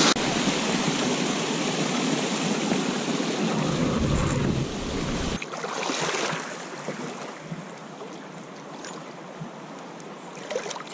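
River water rushing in high, fast flow, with wind buffeting the microphone. The sound is louder for about the first five seconds, then drops to a quieter steady rush.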